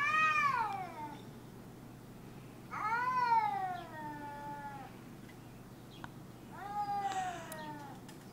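A cat yowling three times. Each call is long and drawn-out, rising and then falling in pitch, with a few seconds between them. These are the warning yowls of a cat facing off with another cat.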